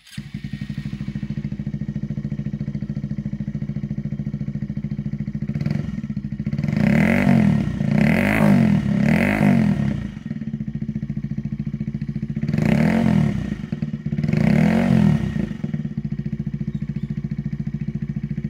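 Honda Monkey 125's single-cylinder four-stroke engine idling through an Akrapovic slip-on muffler on the stock header pipe. About seven seconds in the throttle is blipped three times in quick succession, then twice more a few seconds later, each rev rising and falling back to a steady idle.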